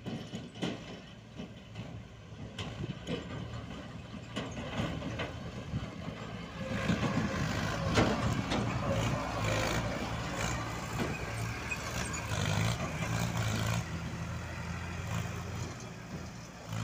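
Tractor diesel engine running under load, getting louder about six seconds in as a Mahindra Arjun tractor drives close by, then staying strong with a steady low beat.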